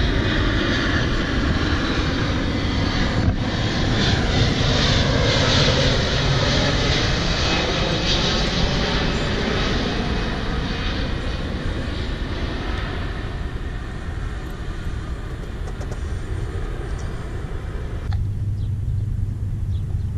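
Jet airliner on approach to JFK flying low overhead: loud jet noise that peaks a few seconds in and then slowly fades as it passes. About 18 seconds in, the sound changes abruptly to a duller low rumble.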